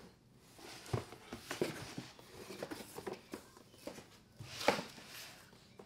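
Cardboard shoe boxes being handled and shifted: scattered light rustles and knocks, the loudest a little before the end.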